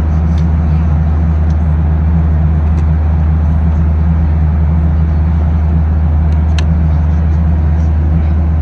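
Steady airliner cabin drone with the engines running: a low hum with a hiss of rushing air over it. A few light clicks come through it, the clearest about two-thirds of the way in, as the seat-back tray table is handled.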